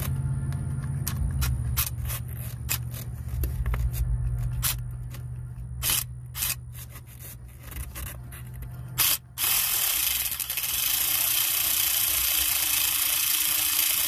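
Scattered metal clicks of a ratchet and socket working an engine bolt, then from about nine seconds a loud steady whirring hiss with one constant tone, like a small power tool running.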